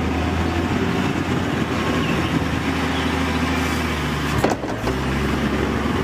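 Doosan wheel loader's diesel engine running steadily, with a short clunk about four and a half seconds in.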